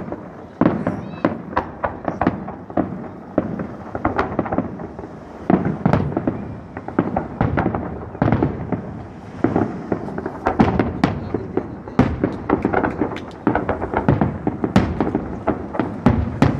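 Aerial fireworks shells bursting overhead in a rapid, irregular series of sharp bangs, several a second.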